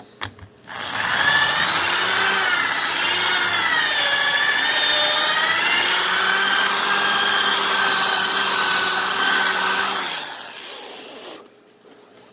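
Electric drill boring a hole into a wooden 2x4 table leg for a caster's stem. The motor whine wavers in pitch as the bit works into the wood, then holds steady and winds down about ten seconds in.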